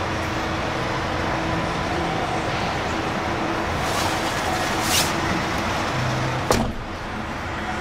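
Steady hum and noise of an idling vehicle engine, with a few light clicks and one sharp knock about six and a half seconds in.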